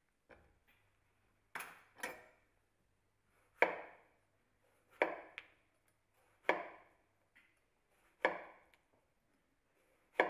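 Chef's knife slicing a tomato into rounds, knocking on the cutting board as each slice goes through. The knocks are sharp and come one at a time, about every second and a half.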